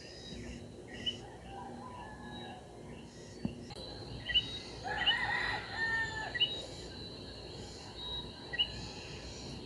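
A rooster crowing once, about five seconds in, over scattered short high chirps. A steady high-pitched insect trill sets in partway through.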